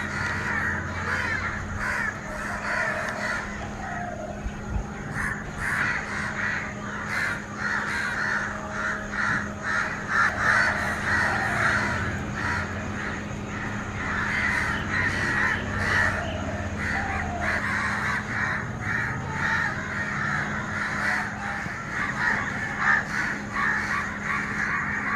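Common myna calling: a continuous run of harsh, chattering calls, with a steady low hum underneath.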